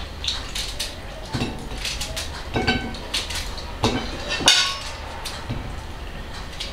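A table knife and plates clinking as a cucumber is cut over a plate: scattered sharp taps and clicks, the loudest about four and a half seconds in.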